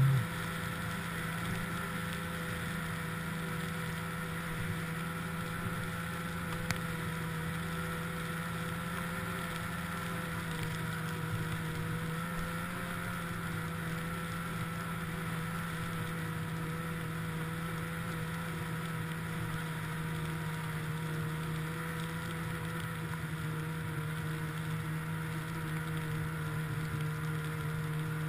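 Snowmobile engine running at a steady cruising speed, holding one even pitch.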